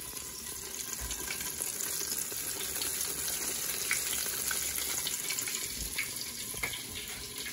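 Buttermilk-battered chicken deep-frying in peanut oil in a tall aluminum stockpot: a steady sizzle and bubbling with scattered pops. It is the sound of oil hot enough to fry, the sound the cook is looking for.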